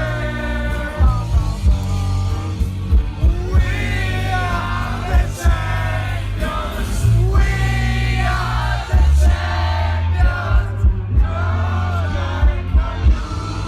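Music with a singing voice over heavy bass and regular drum hits.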